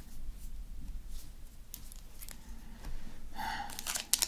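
Faint clicks and rustles of a cut-open foil sachet and scissors being handled, with a brief pitched squeak about three and a half seconds in.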